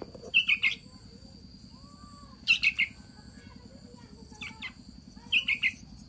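Hand-raised fledgling songbirds giving short, sharp chirps in quick bursts of three or four, four bursts in all, the begging calls of chicks waiting to be fed. A faint steady high tone runs underneath.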